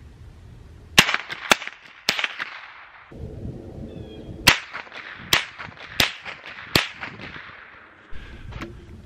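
Semi-automatic .22 LR shots from a Smith & Wesson M&P 15-22 blowback rifle: about seven sharp cracks, unevenly spaced from half a second to over a second apart.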